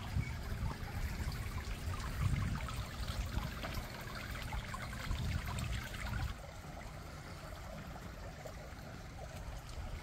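Wind buffeting the microphone in an uneven low rumble, over a steady rushing hiss that drops away suddenly about six seconds in.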